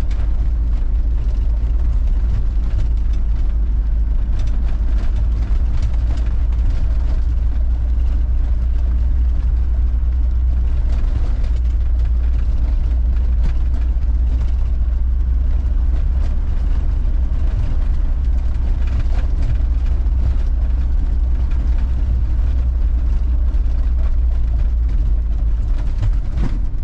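Troller 4x4 driving along a rural road: a steady, loud, low rumble of engine and road noise that keeps an even level throughout.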